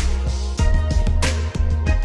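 Music with a heavy bass line and a steady beat of drum hits.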